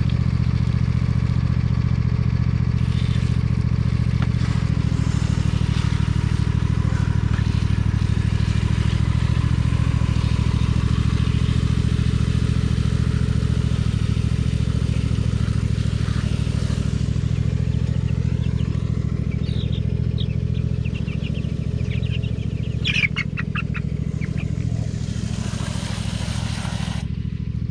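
Small lawnmower engine running steadily at a constant speed, a low even drone, with a few brief high chirps over it about two-thirds of the way through.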